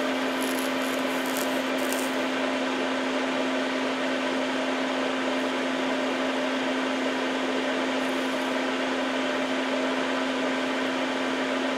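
Steady hum of a small motor or fan: one constant low tone under an even hiss.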